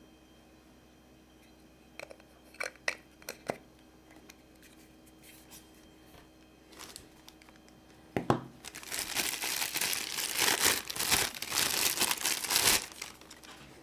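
A few small plastic clicks as lens caps are handled on a camera lens. From about eight seconds in comes a thump, then loud, continuous crinkling of a thin clear plastic bag being pulled open and unwrapped.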